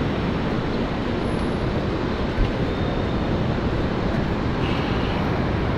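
Steady city traffic rumble, with one brief low thump about two and a half seconds in.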